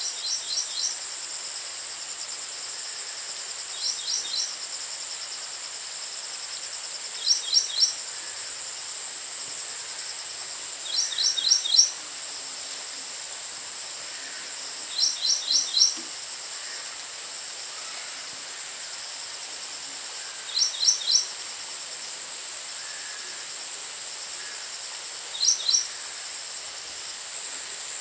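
A bird calling a short burst of three or four quick, high notes, repeated seven times at intervals of about four seconds, over a steady high-pitched drone of insects.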